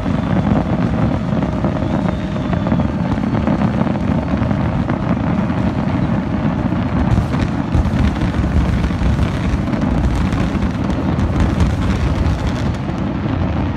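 Fireworks display going off: a dense, continuous rumble of exploding shells with crackling, thickest in the second half.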